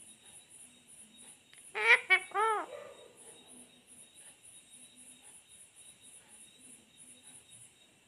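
Rose-ringed parakeet (Indian ringneck) giving a quick burst of three short calls about two seconds in, the last one rising and falling in pitch.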